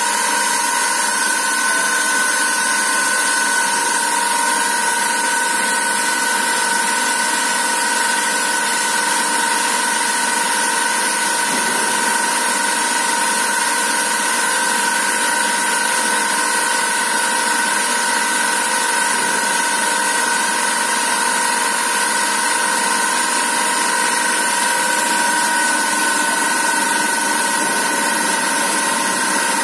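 Thread-rolling machine running continuously: a steady, loud mechanical noise with a high hiss and an even whine held at a couple of pitches.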